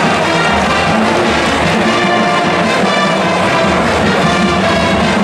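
Marching band brass section playing a tune with held notes, sousaphones among the horns.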